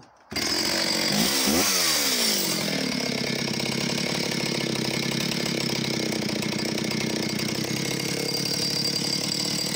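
Vintage Oleo Mac 251 two-stroke chainsaw running. It is revved up and down briefly about a second in, then holds a steady speed.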